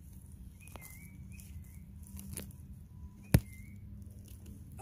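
Forest ambience: a short chirp repeats about every one and a half seconds, with faint scattered clicks and one sharp loud click about three and a half seconds in.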